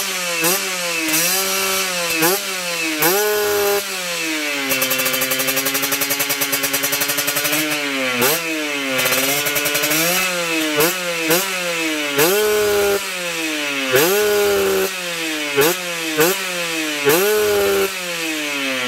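Kawasaki Ninja RR two-stroke single-cylinder engine on a reamed PWK 30 carburettor with open filter, being revved in quick throttle blips, the revs rising and dropping back each time, with one longer held rev for about three seconds about five seconds in. It is a free-revving test of the fresh carburettor setting.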